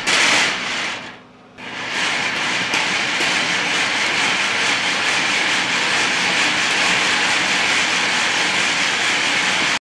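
Metal slinky stretched on a wooden table, its coils rattling: a short burst as a pulse is pushed along it, then a steady rattle while it is shaken side to side, stopping abruptly at the end.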